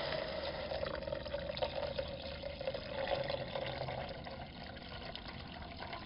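Water pouring in a steady stream into a Bundeswehr aluminium mess tin of fried minced meat and onions, getting weaker towards the end.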